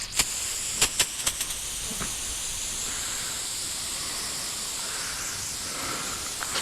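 A steady hiss that starts at once and holds even, with a few sharp clicks in the first second and a half.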